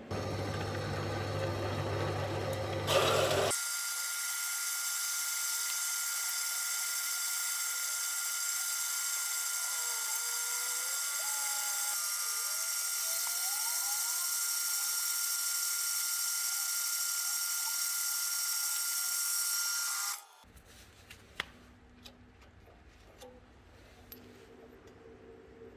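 A power tool running with a steady, high-pitched whine, changing character a few seconds in and then stopping abruptly about 20 seconds in. A few light clicks follow.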